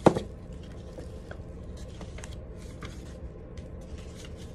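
A single sharp thump right at the start, then light paper rustling and small ticks from a folded paper instruction manual being handled and leafed through.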